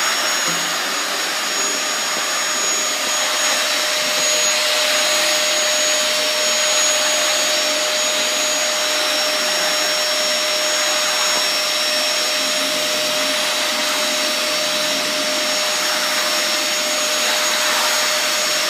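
Vacuum cleaner running steadily, a rushing suction noise with a constant high motor whine.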